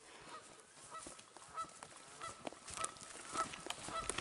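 Turkey yelps and clucks: short, faint, pitched notes repeating irregularly, about a dozen in four seconds, with birds approaching in shotgun range.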